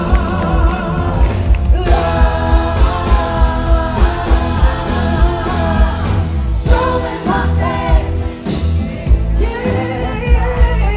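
Live band with a woman singing lead, her held notes wavering, over electric guitar, drums and heavy bass. A steady beat runs at about two a second.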